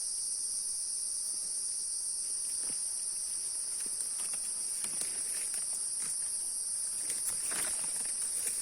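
Steady, high-pitched chorus of crickets or similar night insects, unbroken throughout. From about the middle on there are faint scattered rustles and crackles, like steps or movement in dry undergrowth, a little more frequent near the end.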